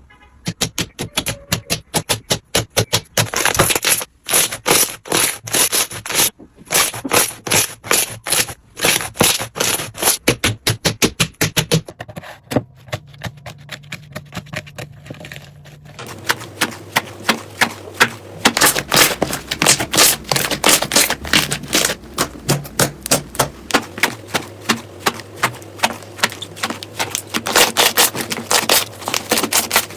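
Slime being pressed and stretched by hand, giving rapid crisp clicks and pops of trapped air, several a second. The click pattern changes about halfway through.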